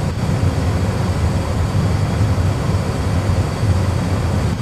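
Airbus A320 cockpit noise during the descent: a steady low rumble of airflow and engines as the aircraft picks up speed.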